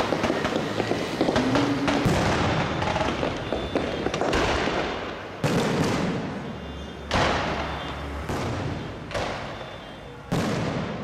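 Fireworks going off: a dense run of crackling pops for the first few seconds, then about six single loud shell bursts roughly a second apart, each trailing off in a fading echo.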